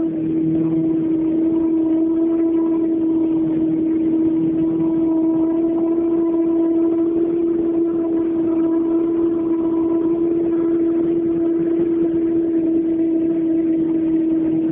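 Boat's motor running at a steady high speed under way, holding one unchanging pitch throughout.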